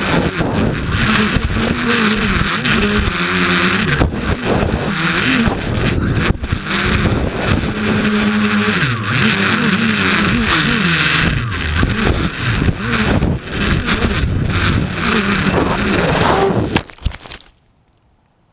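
Tricopter's three NX-4008 brushless motors with 10-inch props, heard from the onboard GoPro, whining with their pitch rising and falling as the throttle changes, over a buzzing rattle from a broken cover plate. The uploader suspects vibration. Near the end come a few sharp knocks as it crashes into tall grass, and the motors stop dead.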